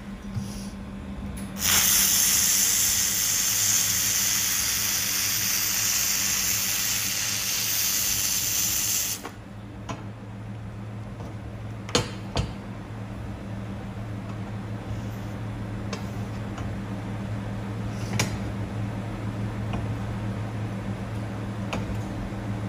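Handheld fiber laser welder with wire feed welding 3.5 mm mild steel under argon shielding gas: a loud steady hiss for about seven seconds that cuts off suddenly. After it, a low steady hum remains, with a few sharp clicks.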